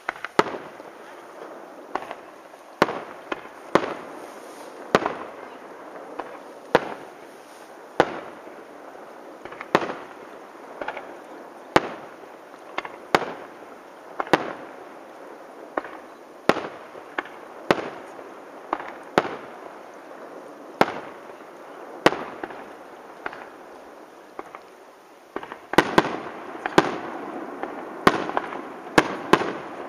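Aerial fireworks shells bursting in a display: a sharp bang every second or two over a steady background of crackle and echo. The bangs come closer together and louder near the end.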